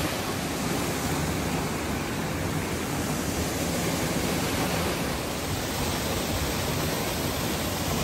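Waterfall pouring down a rock face into a pool, a steady rushing of water that does not let up.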